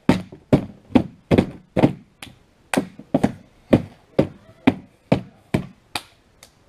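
Hands slapping down again and again on a cardboard box, in a steady run of sharp thumps about two a second, stopping shortly before the end.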